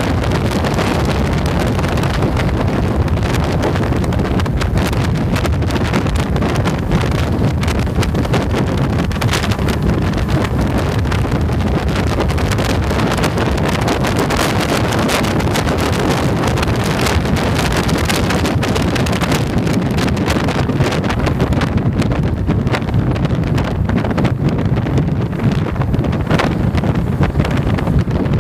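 Wind rushing over the microphone of a camera on a moving Yamaha motorcycle, with engine and road noise underneath. The rush thins in its upper range about three-quarters of the way through and turns choppier near the end.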